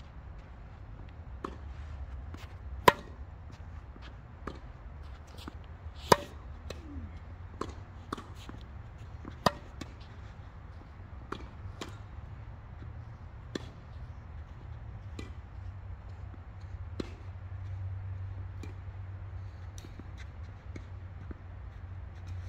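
Tennis rally: sharp pops of racquet strikes and ball bounces about every one to two seconds, the loudest three hits about 3, 6 and 9 seconds in, over a steady low rumble.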